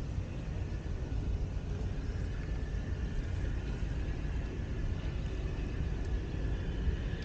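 Steady low outdoor rumble with a faint high whine running through it.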